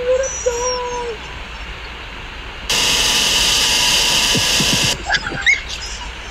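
A dog's high whine, then about two and a half seconds in a loud, harsh jumpscare noise blast that lasts about two seconds and cuts off abruptly.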